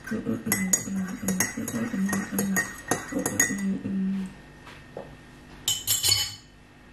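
Teaspoon stirring coffee in a ceramic mug, clinking quickly against the sides for about three seconds, then a brief clatter near the end.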